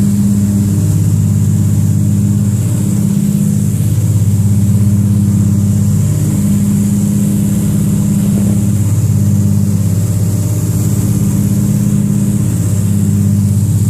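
Aircraft engine droning steadily in level flight, heard from inside the cabin, with a slow waver in the drone every few seconds.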